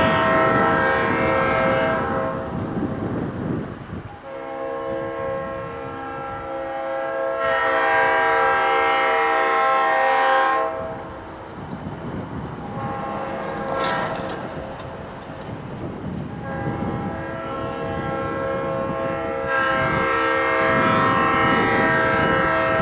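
Diesel locomotive horn sounding a series of long, several-note blasts, a few seconds each with short breaks between, from an approaching passenger train not yet in sight.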